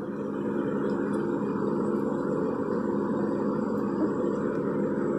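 Steady motor drone with a low hum, swelling a little at the start and then holding even.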